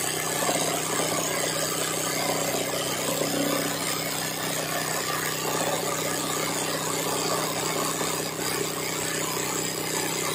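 Industrial sewing machine doing hand-guided embroidery, its motor running steadily and the needle stitching at a fast, even rate.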